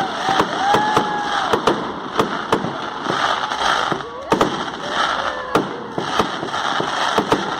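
Fireworks from a castillo firework tower burning: a steady hiss with rapid, irregular pops and cracks, and several whistles gliding up and down in pitch.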